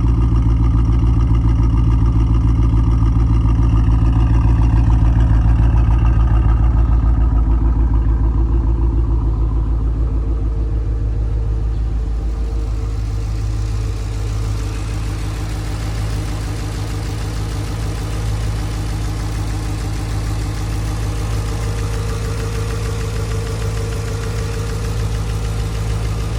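Chevrolet SS's 6.2-litre LS3 V8 idling with a misfire, a steady low pulsing note that eases slightly about ten seconds in.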